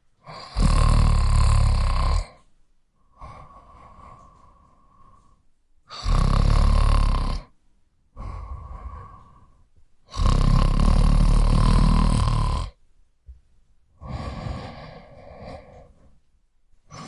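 A man snoring: three loud snores about four to five seconds apart, each lasting one and a half to two and a half seconds, with quieter breaths between them.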